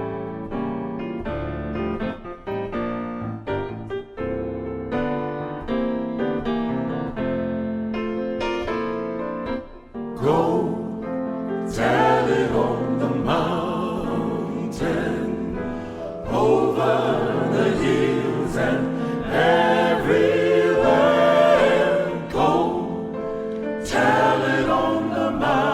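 Background music: a keyboard intro of separate struck notes, then a gospel choir singing from about ten seconds in.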